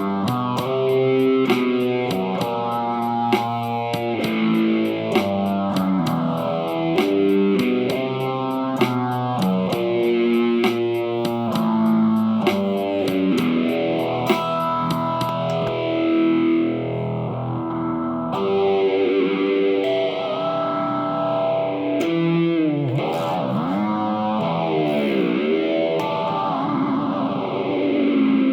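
Electric guitar music played through effects, with a slow, repeating whooshing sweep over the notes. A quick ticking beat runs under it until about halfway through, then stops.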